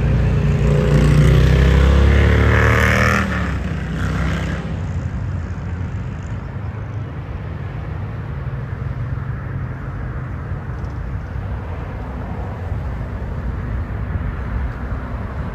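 Amtrak passenger train passing close by: the locomotive goes past loudly for about three seconds, its horn sounding with a pitch that drops as it passes, and a short higher burst follows about a second later. After that comes a steady rumble of the passenger cars rolling past.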